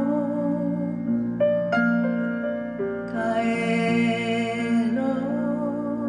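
Slow, gentle live music: a woman singing over sustained grand piano chords, with fresh chords struck about one and a half, two and three seconds in.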